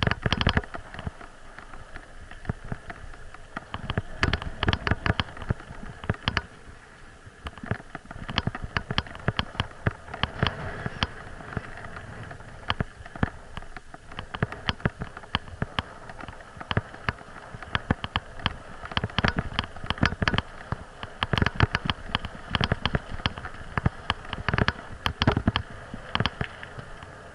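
Bicycle jolting over a rough, stony dirt track: dense, irregular knocks and rattles over a steady rush of tyre and wind noise.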